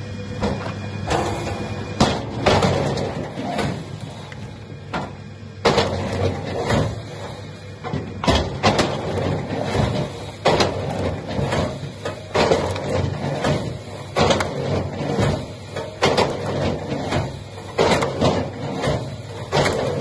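A machine running steadily under a series of heavy knocks and bangs that come every second or two.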